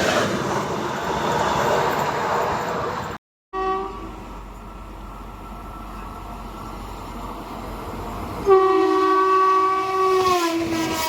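Express train running past with a steady rush of wheel and track noise, then after a brief cut a short horn toot. Near the end a passing locomotive sounds a long, loud air horn whose pitch drops as it goes by.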